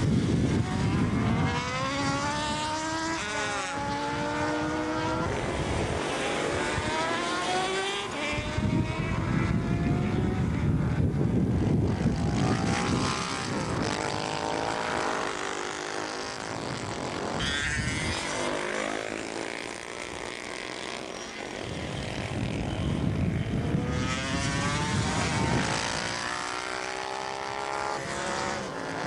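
Motorcycles accelerating hard from a standing start in side-by-side sprint runs, the engines revving up through the gears: each rising note breaks off at a change and climbs again. Several runs follow one another, with a deep rumble as bikes launch.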